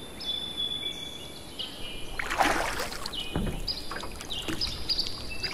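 A wooden boat paddle splashing through the water in a few strokes, the loudest about two and a half seconds in and again about a second later. Faint, thin high whistling tones sound steadily behind.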